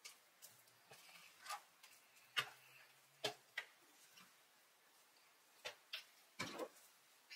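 Sparse, irregular small clicks and taps, about a dozen, the loudest about two and a half seconds in, over an otherwise quiet background.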